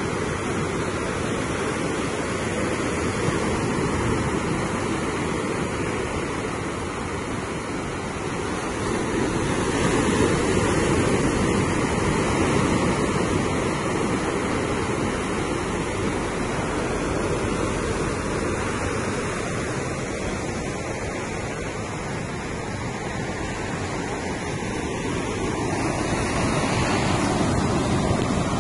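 Sea waves washing onto the shore, a steady rush that swells louder and eases back several times, with wind on the microphone.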